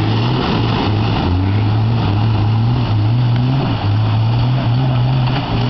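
Jeep Wrangler engine working through a mud hole, revving up and down repeatedly so its note keeps rising and falling.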